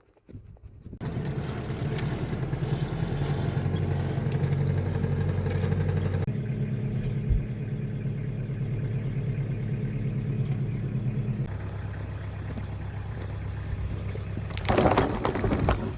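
An engine running steadily, its pitch stepping up about six seconds in and down again near twelve seconds. A brief loud rushing noise comes near the end.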